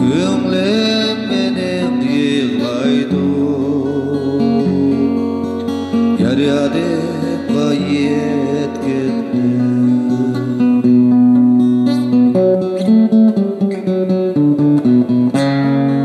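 A man singing a slow melody to his own strummed acoustic guitar. The voice falls away after about nine seconds, leaving the guitar playing on alone with a few sharper strums near the end.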